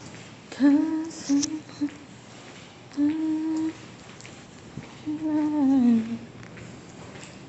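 A person humming three short phrases of held notes, the last one sliding down in pitch.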